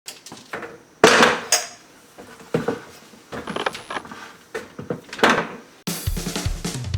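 A series of irregular knocks and clatter of hard objects being handled, the loudest just after a second in and again past five seconds. Music with guitar and drums starts near the end.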